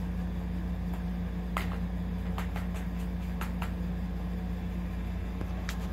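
Plastic balls clicking in a tiered track-ball cat toy as kittens bat at them: several short, sharp clicks at irregular moments over a steady low hum.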